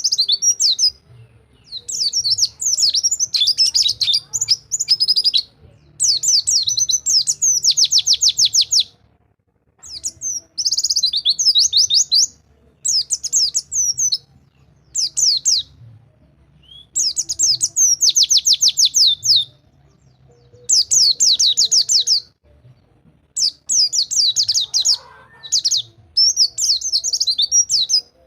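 White-eye (pleci) singing the fast rolling 'rol tembak' song: repeated high-pitched phrases of rapid trills and warbles, each one to three seconds long, with short pauses between them.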